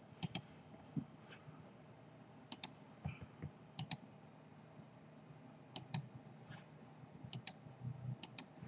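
Computer mouse clicking: about six short double clicks, spaced a second or two apart, over a faint low hum.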